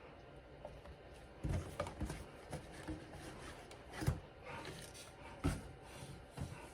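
Cardboard packaging being handled: irregular rubbing and scraping, with a few soft knocks about a second and a half, four and five and a half seconds in.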